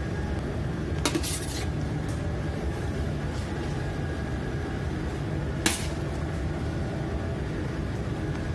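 Steady low machinery hum aboard a docked ship, with a couple of brief clinks of dishes or utensils, one about a second in and another just past halfway.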